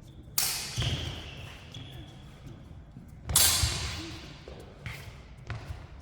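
Steel feder longswords striking together several times in quick, irregular blows, one clash about a second in leaving a short metallic ring, mixed with heavy thuds of fencers' feet on the floor.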